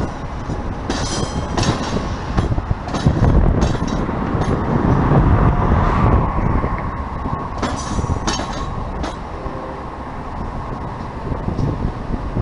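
Metra commuter train of bilevel gallery cars rolling past with a steady low rumble. Its wheels click sharply over rail joints and switches in two clusters, about a second in and again about eight seconds in.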